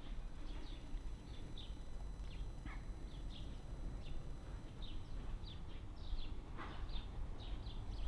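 Small birds chirping outdoors: many short, high chirps over a steady low rumble.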